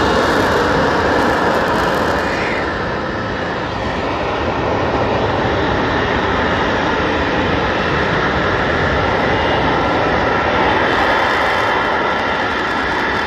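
F-35B fighter jet hovering in its vertical-lift mode, lift fan and downturned jet nozzle giving off loud, steady jet noise.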